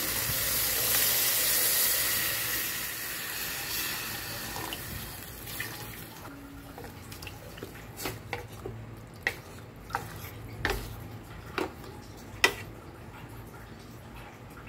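Water poured from a pot into a metal cooking pot over chicken pieces, a splashing pour that fades away over the first five seconds. Then a wooden spatula stirs the broth, knocking against the side of the pot about seven times.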